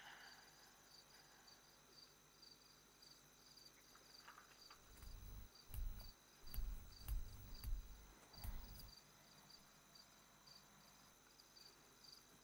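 Crickets chirping steadily in a quiet night ambience, with a few low thumps between about five and nine seconds in.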